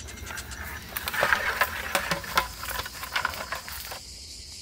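Footsteps crunching and snapping on dry leaf litter and twigs: irregular crackles and clicks, busiest in the middle. A steady high hum of insects runs underneath.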